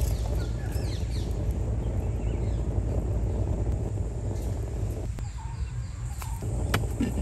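Outdoor ambience: a steady low rumble, with birds chirping briefly around the start and a few sharp clicks near the end.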